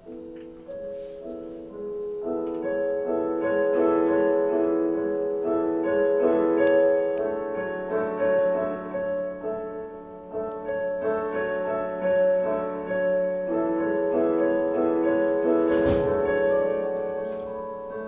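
Slow piano music: layered notes that swell in loudness over the first few seconds and then carry on steadily. A single thud sounds about sixteen seconds in.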